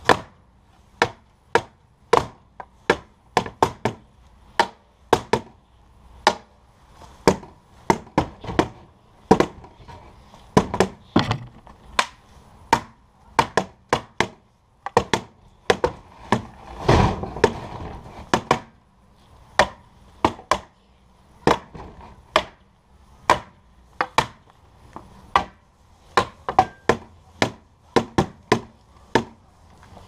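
A long wooden pole and a metal pipe repeatedly whacking the casing of a dishwasher, sharp irregular hits about two a second. A little past halfway comes one longer, louder crash.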